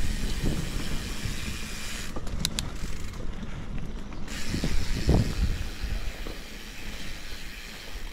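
Mountain bike ridden along an overgrown dirt singletrack: the tyres roll with a low rumble and tall grass swishes against the bike. A few knocks come from the bike over bumps, the loudest about five seconds in.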